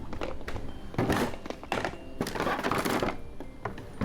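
A run of knocks, clicks and rustling from objects being handled and set down, with a louder patch about a second in and another from about two to three seconds in.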